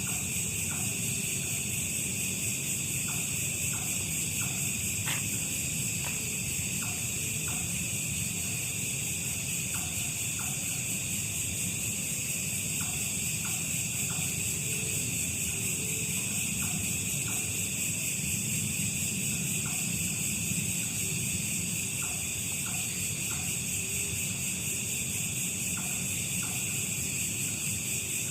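Steady high-pitched chorus of night insects, unbroken throughout, with short clicks scattered in small groups.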